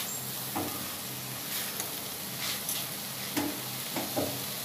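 Silicone spatula stirring and scraping a dry coconut-and-chhana filling in a nonstick karai, with scraping strokes about once a second over a steady sizzling hiss.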